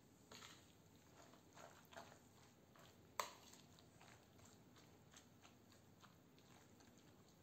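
Faint wet squelching and light clicks of a metal spoon stirring mayonnaise-dressed shredded cabbage and carrot in a bowl, with one sharper click about three seconds in.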